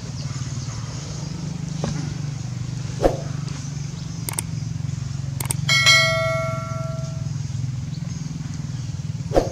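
A single metallic clang about six seconds in that rings on for about a second and a half, over a steady low hum, with a few sharp knocks scattered through.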